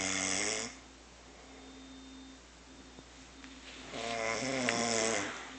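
Snoring, two snores: the tail of one ends under a second in, and another about a second and a half long comes near the end, each with a buzzing, pitched rattle.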